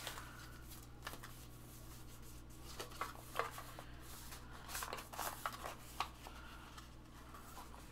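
Paper envelope being handled and opened: soft, scattered paper rustles and crinkles, a few short ones at a time.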